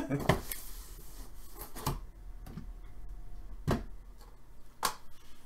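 Cardboard box of hockey pucks being handled and opened, with a few sharp knocks as it is moved and set down and soft rubbing of the cardboard.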